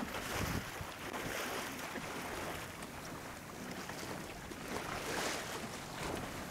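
Wind on the microphone and water washing along the hull of a small open sailboat under sail, a steady hiss that swells and eases.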